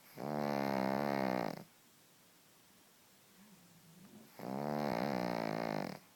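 Sleeping pug snoring: two long snores, each about a second and a half, with a clear droning tone and a pause of nearly three seconds between them.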